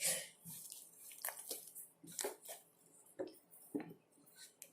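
Homemade glue slime being squeezed and stretched in the hands, making faint, irregular wet clicks and squishes.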